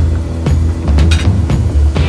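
Background music with a strong bass line and a regular beat.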